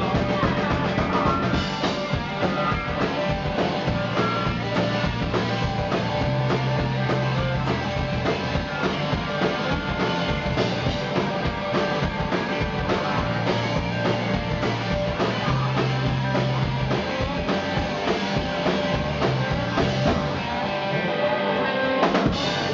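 Live rock band playing: distorted electric guitars, bass guitar and a drum kit, dense and continuous throughout.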